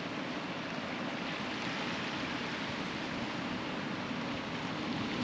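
A car driving along a coastal road right beside the sea: a steady rush of tyre and wind noise mixed with surf, growing slightly louder toward the end.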